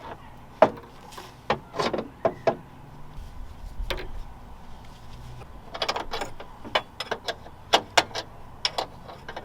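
Metal hand tools and suspension parts clinking and knocking during reassembly of a car's front suspension control arm: irregular sharp clicks, scattered at first and coming thick and fast in the last few seconds.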